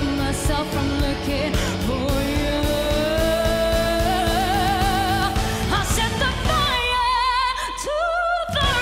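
A woman's solo voice sings long held notes with a wide vibrato over a live pop-rock band. Near the end the band drops away and the voice holds a higher note almost alone.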